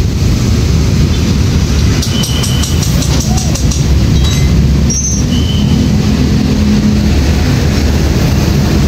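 A heavy engine running steadily, a loud low drone with a quick run of clicks about two to three seconds in.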